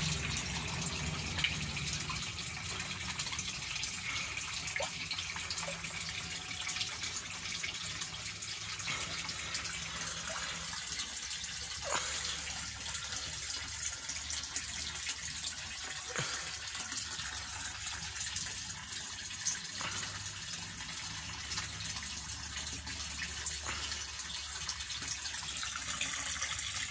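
Water splashing and trickling steadily in a koi tank, with a few sharper splashes.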